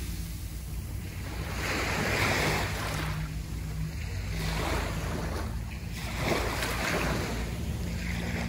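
Sea waves breaking and washing up a sandy beach, one surge after another every second or two, over a steady rush of surf.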